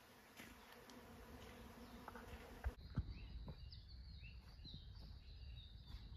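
Faint forest ambience: a steady low buzz for the first few seconds, then, after a sudden change, scattered short chirps over a steady high whine and a low rumble, with a sharp knock just after the change.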